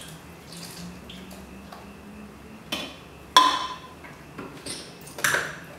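Coconut water poured from a can into a plastic blender jug of bananas. Then a few sharp knocks and clatters, the loudest about three and a half seconds in, as the can is set down on the counter and the lid is fitted onto the jug.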